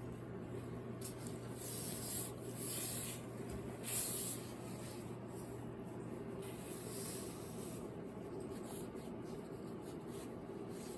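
Soft rubbing and rustling of cloth in a few brief bursts, over a steady low hum.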